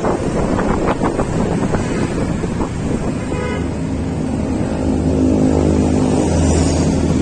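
Wind buffeting the microphone on a moving road vehicle. From about three seconds in, the steady hum of a vehicle engine grows louder beneath it.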